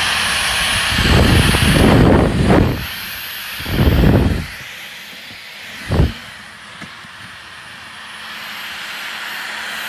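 Dyson V15 cordless stick vacuum with its hardwood-floor head running: a steady, loud, hissing whir. Louder low rushes surge in at about one to three seconds in, again around four seconds, and briefly near six seconds.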